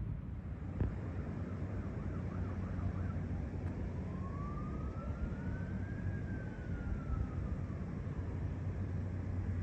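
Wind rumbling on the microphone, with a faint distant siren wailing, rising in pitch about four seconds in and falling away again by about eight seconds.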